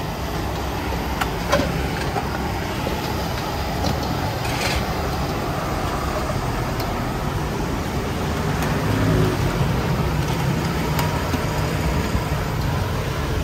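Road traffic running past a street-food stall: a steady rumble of engines that swells about nine seconds in, with a few brief clicks.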